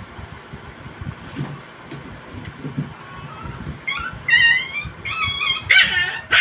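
Puppies play-fighting: soft thuds and scuffles at first, then from about four seconds in a quick run of high-pitched yips and whines, growing louder toward the end.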